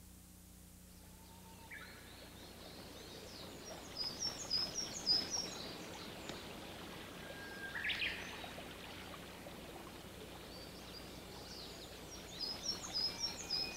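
Wild birds singing: a run of quick, high chirping notes about four seconds in and again near the end, with a single call near the middle, over a faint steady outdoor background hiss.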